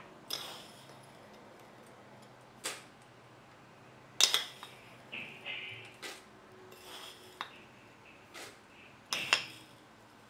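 A metal tablespoon clinking and tapping against a stainless steel mixing bowl as spoonfuls of coffee are added: about eight sharp clinks at irregular intervals, the loudest about four seconds in and again just after nine seconds.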